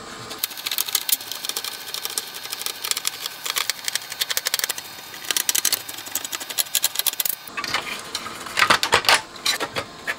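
Screwdriver turning screws out of a metal amplifier chassis, a rapid run of small clicks. About eight seconds in come louder clicks and clatter as the circuit boards are handled.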